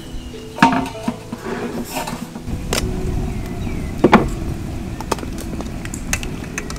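Metal clanks and clinks of steel tongs and a steaming plate knocking against a large steel wok, the loudest a quick double clank about four seconds in. Under them, from about two and a half seconds in, a steady low rumble of the water boiling hard in the wok.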